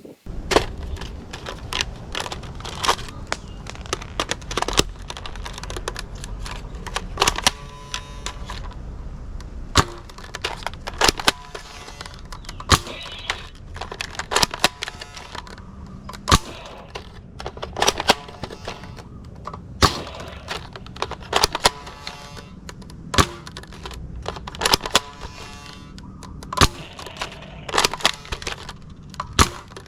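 A toy AK47 gun being worked and fired: dozens of sharp, irregular clicks and snaps, some with a short ringing tail, over a steady low background hum.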